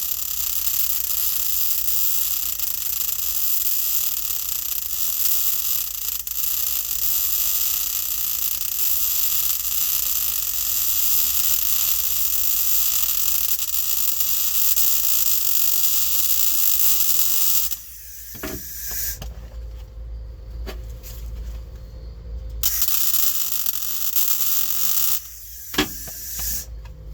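Welder running a continuous weld on a car's sheet-metal floor pan, a steady hiss for about eighteen seconds that cuts off suddenly. A second, shorter weld of a few seconds follows near the end.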